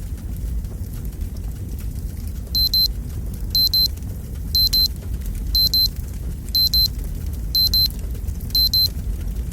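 Fireplace logs burning with a low rumble and faint crackling. About two and a half seconds in, a timer alarm starts: a high-pitched electronic double beep repeating once a second.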